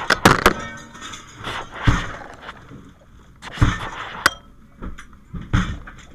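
Firefighter's metal pike pole striking hard about half a dozen times at irregular intervals, with clanging and breaking crashes, typical of breaking out glass to ventilate a burning building.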